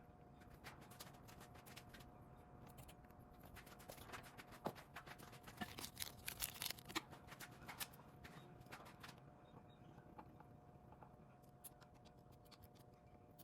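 Faint, irregular clicks and light taps of hand tools and small parts being handled during scooter brake work, thickest about five to seven seconds in and dying away after about nine seconds, over a steady faint hum.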